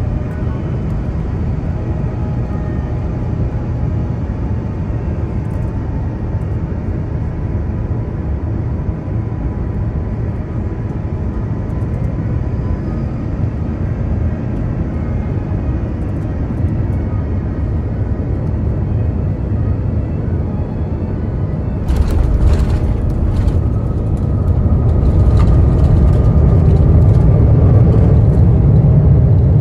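Airliner cabin noise on final approach: a steady jet-engine rumble with faint whining fan tones. About three-quarters of the way through, the wheels touch down with a jolt and rattling, and the rumble then grows louder on the landing rollout as reverse thrust is applied.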